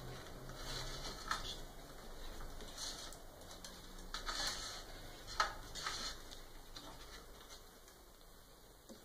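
Faint rustling and scattered light clicks of electrical cables being handled and pushed through a slot in a 3D printer's frame, with a sharper tap about five seconds in.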